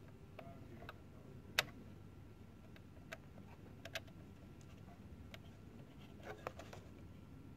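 Faint, irregular clicks of a small screwdriver tightening the clip screws that hold an instrument's indicator in place, with one sharper click about a second and a half in.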